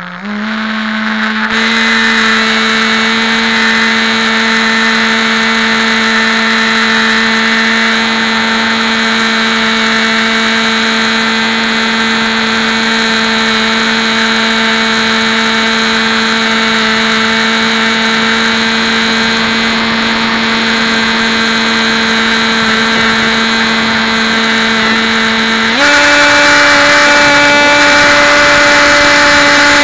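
Electric motor and propeller of a Hobby King Bixler model plane, heard through its onboard camera: a steady, loud buzzing whine that rises in pitch as the motor spins up at the start, then steps up to a higher pitch near the end as the throttle is opened further.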